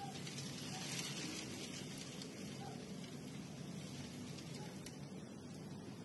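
Blizzard wind driving snow, a steady rushing hiss that swells in a gust about a second in.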